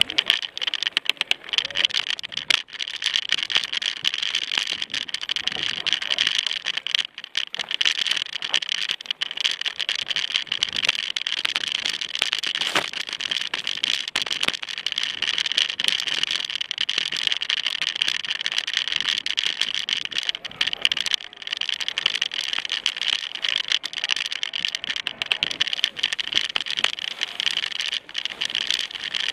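Mountain bike riding fast over a rough dirt trail, the bike and its mounted camera rattling and knocking continuously over the bumps, over a steady high hiss.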